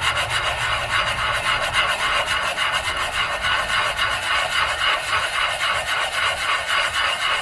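Holley 94 carburetor's base being rubbed flat on sandpaper laid over glass, a steady rasping in quick, even repeated strokes. The carburetor's mating surface is being trued flat so the gasket will seal.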